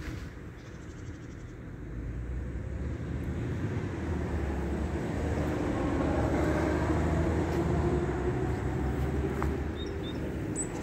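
BMW R 1200 GS LC's boxer twin idling steadily with a low, even exhaust note. It grows louder a few seconds in and is loudest around the middle.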